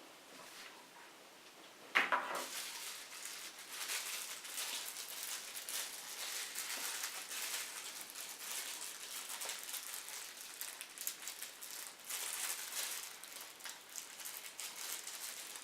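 Crinkling and rustling of plastic packaging with many small crackles, starting with a sharp crackle about two seconds in.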